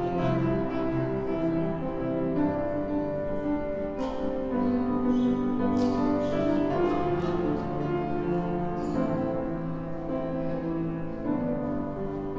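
Slow instrumental music: piano with long held notes.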